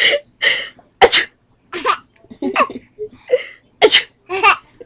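Fake sneezes answered by a baby's laughter, in a quick run of short bursts about twice a second.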